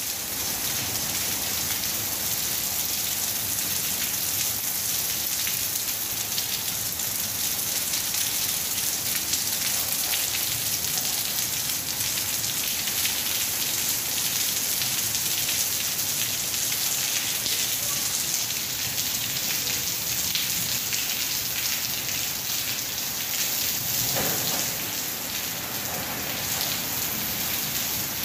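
Heavy rain falling steadily on concrete paving and garden foliage: a dense, even hiss of drops.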